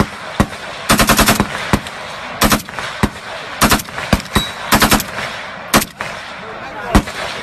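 Rifle fed from a 50-round drum magazine firing a rapid series of shots: singles and pairs, with one fast string of about six shots about a second in.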